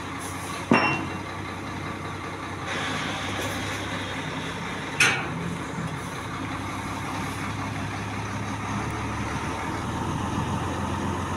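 A vehicle engine running steadily in a repair yard, with two sharp knocks, one about a second in and one about five seconds in, the first leaving a brief ring.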